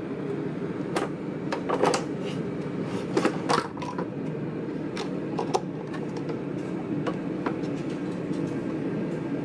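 Hard plastic popsicle mold and its stick lids clicking, knocking and scraping against the freezer-door shelf as it is handled and set down, a string of short irregular knocks over a steady low hum.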